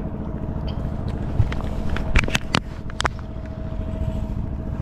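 Boat motor running steadily at low revs, a low rumble with a faint steady hum over it. A few sharp knocks come about two to three seconds in.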